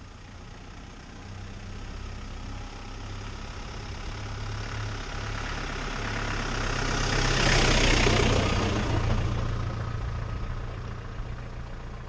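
Engine of a boxy off-road 4x4 running as it drives up close and past, growing louder to a peak about eight seconds in with a brief rush of noise, then fading away.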